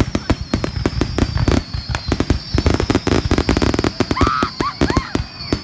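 Many fireworks going off at once: dense, rapid cracking and banging, several reports a second, with a thin high whistle slowly falling in pitch above them.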